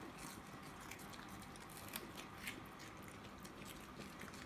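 Faint chewing and crunching of puffed snacks being eaten, heard as scattered soft clicks over quiet room tone.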